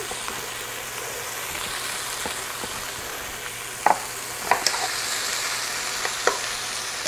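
Sliced bell peppers and onions sizzling in oil in a skillet over medium-high heat, charring. A wooden spatula stirs them, knocking and scraping against the pan a handful of times in the second half.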